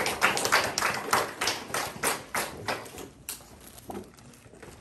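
A small audience applauding, the claps sharp and separate, thinning out and stopping about three and a half seconds in.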